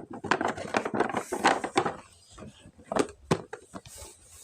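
Toy packaging being handled during an unboxing: a quick run of crackles and clicks for about two seconds, then a couple of sharp taps about three seconds in.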